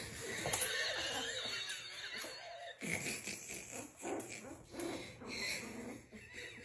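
A person laughing: one long breathy stretch, then several shorter bursts about a second apart.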